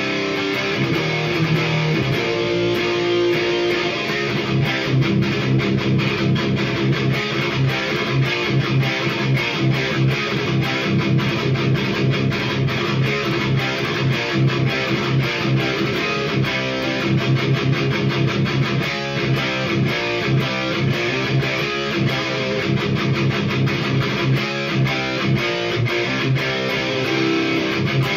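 Electric guitar, an ESP Ltd H-400 with Seymour Duncan JB/59 pickups tuned to drop C, played through a Hiwatt Hi-5 5-watt all-tube amplifier (one EL84, one 12AX7) into 1x12 cabinets with Celestion Vintage 30 speakers. It plays a continuous riff of rapid picked notes with rhythmic accents.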